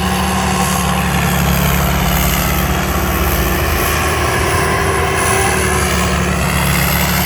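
Rice combine harvester's Isuzu 6HK six-cylinder diesel engine running steadily under harvesting load, with a thin high whine above the engine sound.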